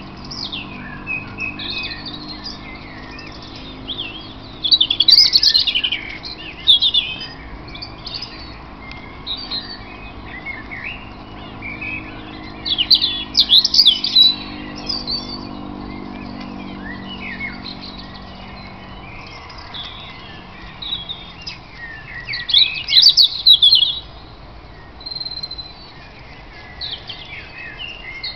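Songbirds singing in a dawn chorus: overlapping chirps and trills, with three loud bursts of rapid high notes. A faint low hum sits under the birds and fades out about two-thirds of the way through.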